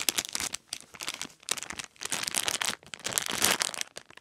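Clear plastic packaging bag crinkling in irregular rustling bursts as a foam squishy toy is squeezed through it.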